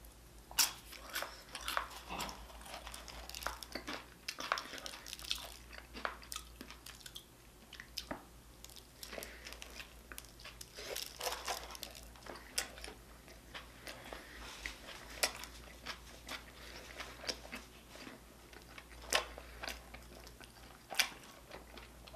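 Close-up chewing and biting of a Chicago-style hot dog with crunchy toppings: quiet, wet mouth sounds with irregular crunches and smacks.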